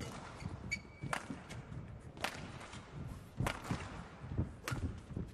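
Badminton rackets hitting a shuttlecock in a rally: four sharp hits a little over a second apart, with the players' footwork thudding on the court between them.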